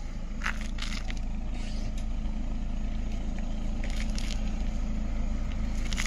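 Car engine running at idle while the car creeps slowly backward, the steady hum growing a little louder. A few faint crackles break in about half a second, a second and four seconds in.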